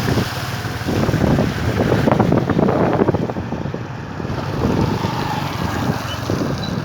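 Wind buffeting the microphone over moving floodwater: a rough, gusting rush with no clear engine note.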